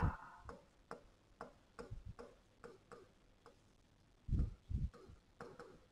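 Stylus tapping and clicking against a touchscreen whiteboard while handwriting: faint, irregular ticks, with two duller knocks a little past four seconds in.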